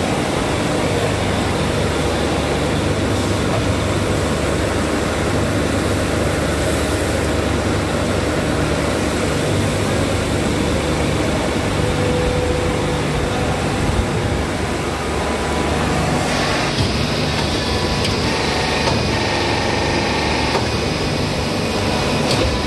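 Steady running noise of factory machinery: a constant low drone under an even mechanical hiss. About sixteen seconds in, the higher part of the noise shifts.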